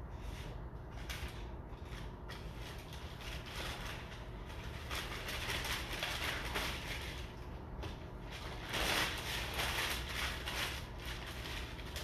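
Bristle paintbrush dragging and dabbing thick oil paint on canvas in a run of short scratchy strokes, busier about halfway through and again a little later, over a steady low hum.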